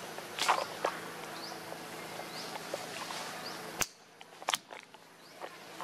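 Outdoor ambience among trees: a steady hiss with short high rising chirps about once a second, broken by a few sharp clicks or snaps, one about half a second in and two about four seconds in, after which the background drops quieter.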